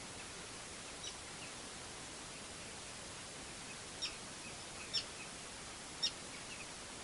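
Short, sharp bird chirps: one about a second in, then three louder ones about a second apart near the middle and later, over a steady outdoor background hiss.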